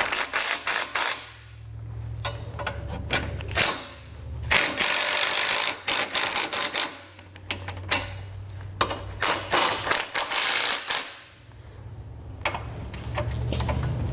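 Cordless impact driver with a socket extension snugging down steel bracket bolts, running in about five short spurts of motor whir with rapid hammering clatter and brief pauses between them as it moves from bolt to bolt.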